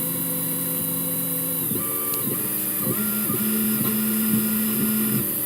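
CNC lathe turning a bishop chess piece: its motors whine in steady tones that jump to new pitches as the cutting moves change, once a little under two seconds in and again about three seconds in.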